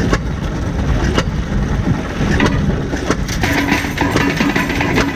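Small engine running steadily with sharp metal knocks from old concrete block-making machinery. Guitar music comes in about three and a half seconds in.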